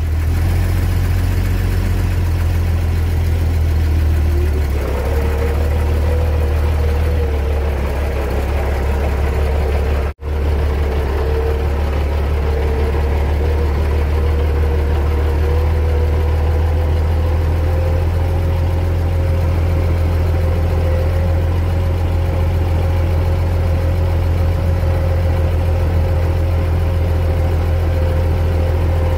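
Tractor engine running as the tractor drives slowly over beach sand: a loud steady low drone with a whine that climbs about four to five seconds in, then holds steady. The sound drops out for an instant near the ten-second mark.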